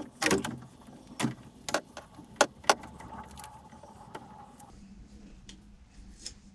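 Handling noises as duct tape is wrapped around the end of PEX tubing to join it to an old plastic water pipe: a run of sharp clicks and knocks, then quieter fumbling.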